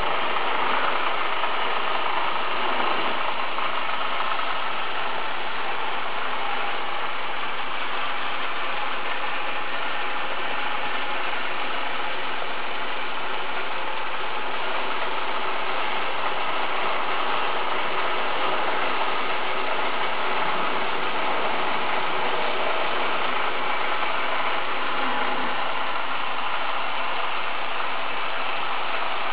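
Small motors and gears of an HO-scale model bobsleigh ride running steadily, a continuous mechanical sound with no pauses.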